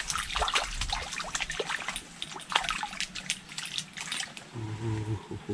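Water splashing and dripping in many quick small splashes over the first four seconds, then dying down. A brief hum of a man's voice near the end.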